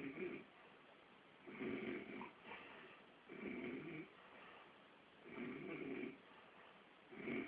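A man snoring in a steady rhythm, one loud snore about every two seconds, with quieter breathing between.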